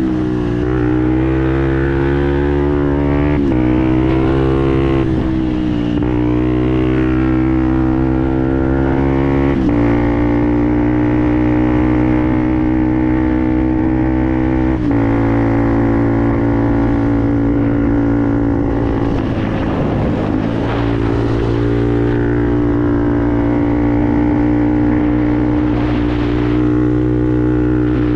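Fantic Performance 125 Motard's single-cylinder four-stroke engine running through a GPR aftermarket exhaust under way, the note held fairly steady with several abrupt shifts in pitch, as at gear changes.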